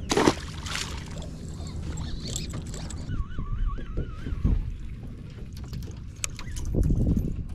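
Boat motor running steadily at low revs, with sharp knocks and clicks and a brief wavering whistle-like tone about three seconds in.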